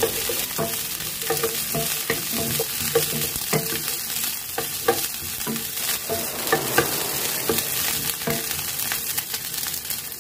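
Onion and ginger sizzling in hot oil in a nonstick frying pan, stirred with a wooden spatula that knocks and scrapes against the pan about twice a second.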